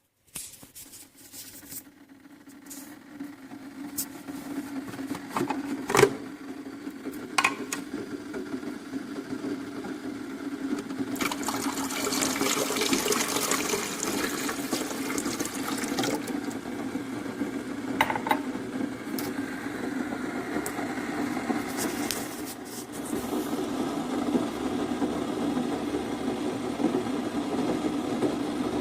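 Keurig K-Classic single-serve coffee maker brewing: its pump hums steadily while hot water rushes through, the watery hiss growing louder over the first several seconds and then holding. A few sharp clicks come through, the loudest about six seconds in.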